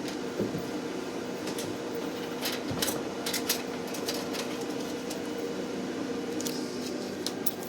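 Steady machine hum from a laser cutter setup, with scattered light clicks and taps of cut pieces being handled and sorted.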